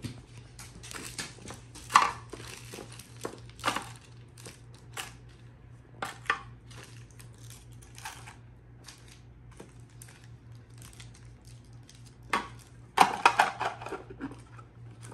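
Wrapped sweets being rummaged through by hand: scattered crinkles of candy wrappers and small clicks of sweets knocking together, with a louder flurry of crinkling near the end.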